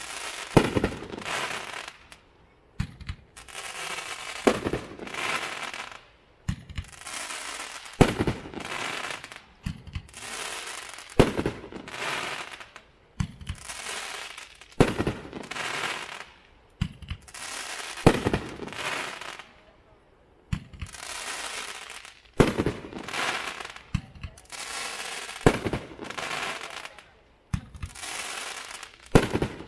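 Hot Fireworks 'Rapture Release' firework cake firing its shots one at a time, about every three seconds. Each shot is a sharp launch thump followed by about a second of sparkling hiss as the glittering comet tail climbs and breaks, with a few smaller pops between the main shots.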